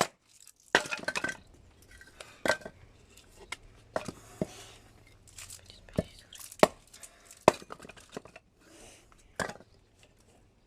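A series of irregular sharp clicks and light knocks, a dozen or so spread unevenly, over a faint low hum.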